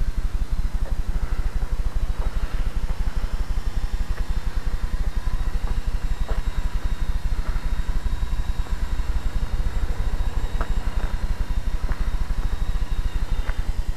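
Wind buffeting a keychain camera's tiny microphone: a loud, uneven low rumble, with a faint steady whine and a few light clicks over it.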